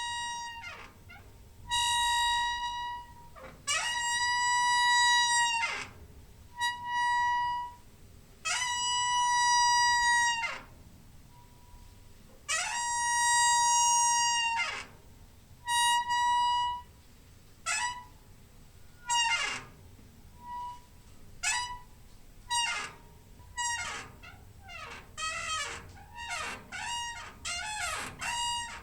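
Door hinge squeaking as a door swings: a series of long, high, steady squeals, some bending in pitch at their ends, then shorter, quicker squeaks in the last few seconds.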